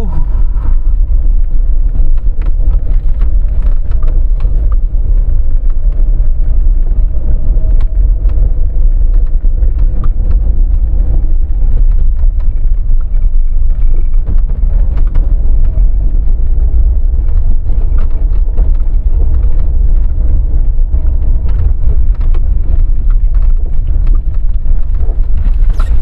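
Car driving slowly over a rough, unpaved mountain road: a steady low rumble of engine and tyres, with frequent short knocks and rattles from stones and potholes.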